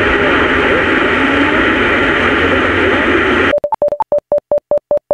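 Citizens-band AM transceiver's receiver hissing with static, a weak wavering signal under the noise. About three and a half seconds in it cuts abruptly to a quick run of about a dozen short electronic beeps.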